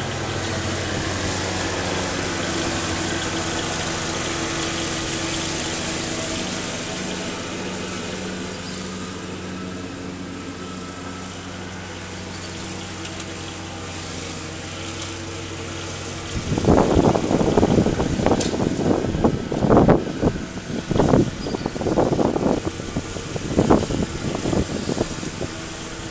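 A riding lawn mower's engine running at a steady hum. About two-thirds of the way in, loud, irregular bursts start and drown it out.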